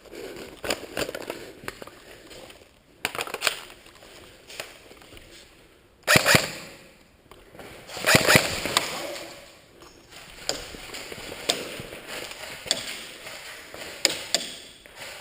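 Airsoft guns firing: scattered sharp single shots, with two louder short bursts about six and eight seconds in, each trailing off over about a second.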